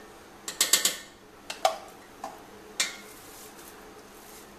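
Steel spoon clinking and scraping against a stainless steel bowl while stirring ghee into a thick, sticky dough: a quick cluster of clinks about half a second in, a few single clinks after, then softer scraping near the end.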